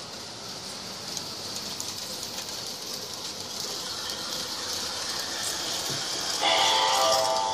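Model L&N Hummingbird train running on its track, a steady clicking clatter that grows louder as it comes closer. About six seconds in, its horn sounds a chord of several tones for about a second.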